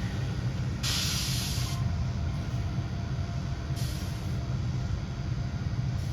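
Low steady rumble of idling grain-truck engines, with two sharp hisses of air let out of a truck's air brakes: a strong one about a second in and a shorter, weaker one near four seconds.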